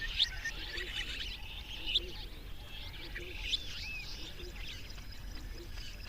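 Several birds chirping and calling together, with a few louder, sharp chirps standing out every second or two over a steady low rumble.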